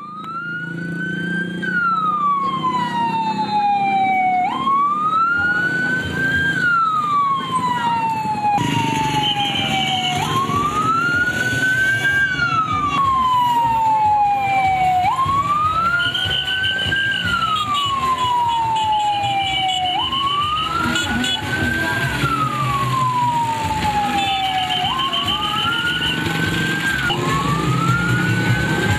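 Police pickup truck's siren wailing in a slow rise and fall, each cycle climbing briefly and then sliding down, about once every four and a half seconds.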